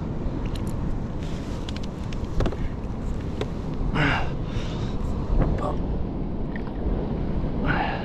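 Wind buffeting the action camera's microphone and water sloshing around a kayak in choppy whitewater, a steady rushing noise. Two short vocal sounds from the angler come about four seconds in and near the end while he plays a hooked fish.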